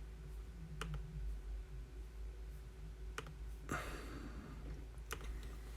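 A few faint, separate clicks, about two seconds apart, with a short rustle about four seconds in, over a low steady hum.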